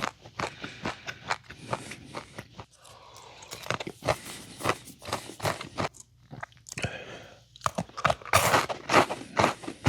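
Close-up crunching and chewing of a crisp snack: many irregular crackling bites and chews, loudest about eight seconds in.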